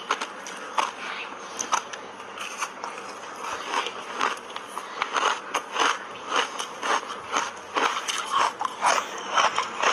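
Biting and chewing through a block of refrozen matcha-powder ice, close to the microphone: a string of sharp crunches and cracks, coming more often from about four seconds in.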